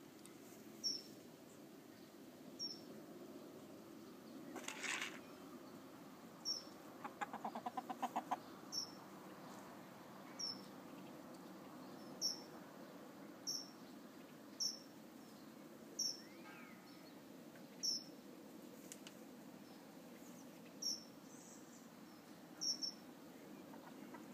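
A short, high chirp repeated about every second or two over a low steady hum. About seven seconds in there is a quick rattle of a dozen or so clicks.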